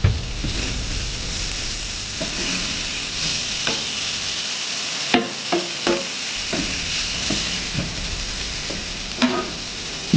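Food sizzling steadily on a Blackstone flat-top griddle, most likely the mahi fillets being blackened, with about ten scattered sharp clicks of a spatula against the griddle.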